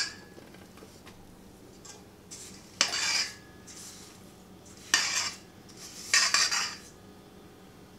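A spatula scraping sticky cookie dough out of a stainless steel mixing bowl: a sharp knock right at the start, then three short scrapes about three, five and six seconds in, each beginning with a knock against the metal.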